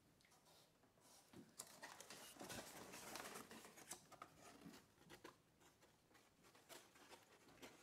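Faint rustling and crinkling of folded paper, with scattered small clicks, busiest about two to four seconds in: hands handling origami models.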